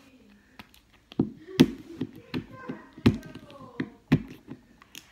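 Fingers and nails picking at and tapping the wrapped plastic ball of a LOL Surprise toy, giving a string of sharp clicks and taps. The loudest come a little over a second in and again about three and four seconds in.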